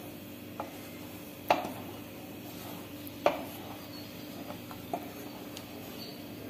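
Wooden spatula stirring a thin curry in a pan, knocking against the pan a few times as it sweeps round; the loudest tap comes about a second and a half in, another near the middle.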